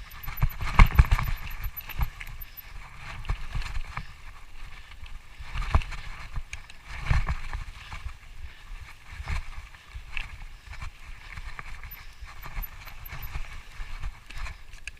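Bicycle ridden over rough trail ground: irregular knocks and rattles, with the heaviest jolts about a second in and again around six and seven seconds.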